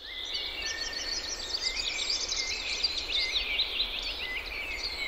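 Birdsong from several small songbirds chirping and trilling without pause over a soft steady hiss.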